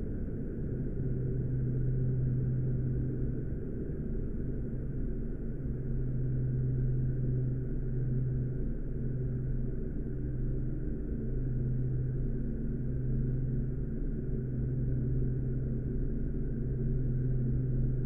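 A continuous low drone with a deep hum in it that swells and dips irregularly every second or two, and nothing high-pitched.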